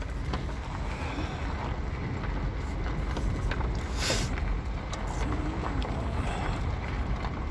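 Car rolling slowly over a gravel road, heard from inside the cabin: a steady low rumble of tyres and wind, with scattered small clicks of gravel and one short burst of noise about four seconds in.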